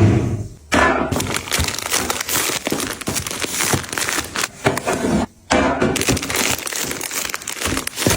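Packaging being handled during restocking: crinkling and rustling with a busy run of small clicks and knocks, broken by two abrupt cuts, one about a second in and one about five and a half seconds in.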